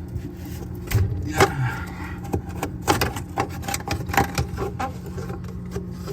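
Irregular knocks, taps and scrapes of ice and plastic parts being handled while ice is cleared out of a refrigerator's freezer compartment, over a steady low hum.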